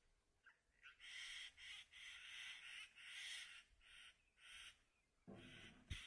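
Faint, harsh, rasping calls of a crow-like bird, given as a quick run of short calls, several a second, directed at a snake in a tree. A low rumble comes in near the end.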